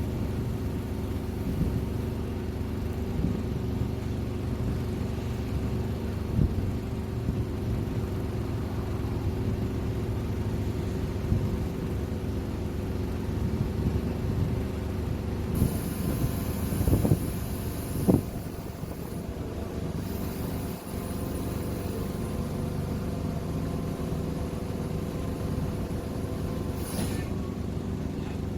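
Diesel engine of an XCMG QY25K5A truck crane running steadily, with a few short knocks and clanks over it.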